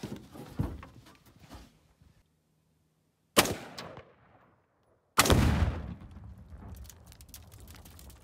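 A 5.56 AR-15 rifle shot, then about two seconds later a second shot that sets off Tannerite submerged in a water-filled cooler: a heavy blast with a long, deep, fading rumble and scattered crackles after it. A few faint knocks come in the first two seconds.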